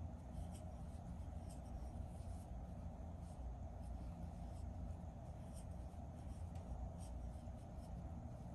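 Crochet hook working yarn through stitches: faint, irregular scratchy rubbing and light ticks over a steady low hum.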